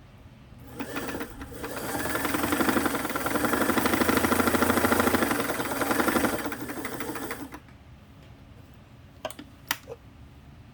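Singer 327K sewing machine stitching: the motor and needle speed up over about a second, run fast and steady for several seconds, then slow and stop about seven and a half seconds in. A few light clicks follow near the end.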